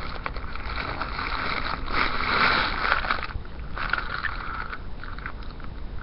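Soft rustling with a few faint ticks from a diecast toy car being handled and turned in the fingers close to a webcam microphone, coming and going in patches, over a low steady hum.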